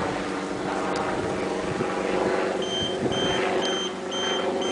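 A vehicle running amid steady background noise. A little over halfway in, a high electronic beep starts, repeating about twice a second in the manner of a vehicle's warning beeper.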